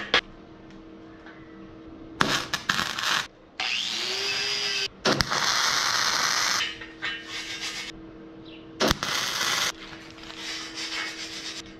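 MIG welding on steel tubing: stretches of steady crackling arc, the longest lasting a second or two in the middle, with shorter sputters before and after. The welds are filling a gap around a cut hole.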